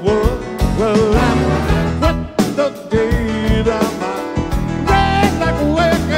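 Live band playing an upbeat, piano-led honky-tonk rock song, with a male lead vocal over it. It is heard as a musicians' in-ear monitor mix, with very little crowd noise.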